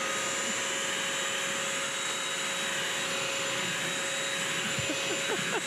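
BISSELL Crosswave wet-dry vacuum running steadily with a constant high whine over its suction hiss, sucking up spaghetti from a hard floor.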